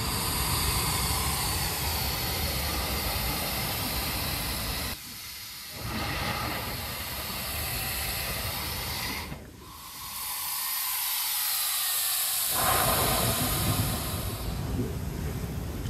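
Air and seawater rushing in and out of a hole in coastal lava rock as the surge rises and falls, the 'breathing' of the rock. It drops briefly about five seconds in, then dies away from about nine and a half seconds until a new surge comes in near twelve and a half seconds.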